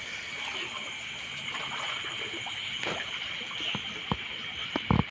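Steady night ambience by a river: trickling, flowing water under a steady high-pitched drone, with a few sharp knocks near the end.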